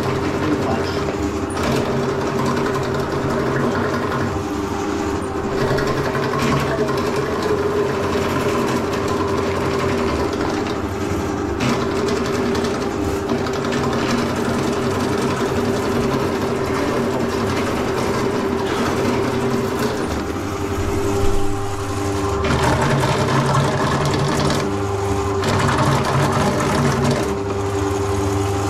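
Electric drain-cleaning spiral machine running steadily, turning the cleaning spiral in the drain pipe: a constant motor hum with a few brief knocks.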